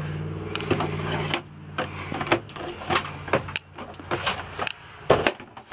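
A steady electric motor hum cuts off suddenly about a second and a half in. A string of sharp clicks and knocks follows, from fittings being handled.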